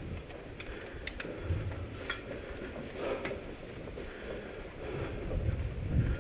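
Wind buffeting the camera microphone in uneven low gusts, strongest near the end, with footsteps and a few light clicks from players on the move.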